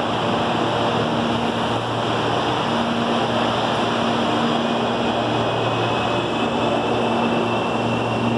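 CPTM series 8500 electric multiple unit standing at the platform, its on-board equipment giving a steady hum over a constant rushing noise. A faint high whine rises slowly from about halfway through.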